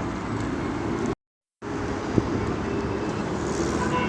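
Steady road-traffic hum. It drops out completely for about half a second just over a second in, and a single sharp tick comes about two seconds in.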